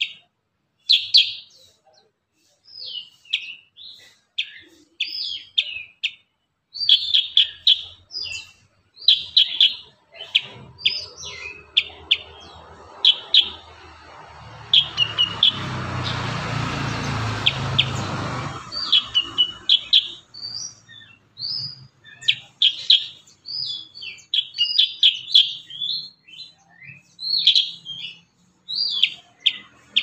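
Black-headed bulbul (cucak kuricang) singing in quick, closely packed bursts of sharp, high chirping notes. A low rushing rumble builds from about ten seconds in and dies away just before twenty seconds.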